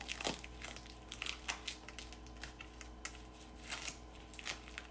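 Transparent film (Tegaderm) dressing crinkling and crackling as gloved fingers peel it off the skin: a run of small, irregular crackles.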